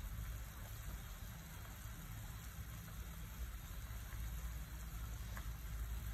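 A pot of pork, carrot and onion soup at a rolling boil, bubbling with a steady hiss over a low hum.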